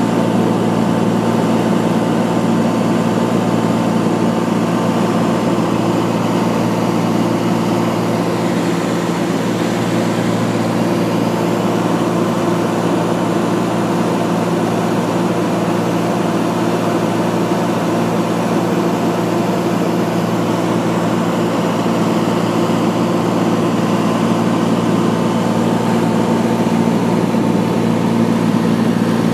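Steady drone of an aircraft's engine and propeller heard from inside the cabin, holding one even pitch and level throughout.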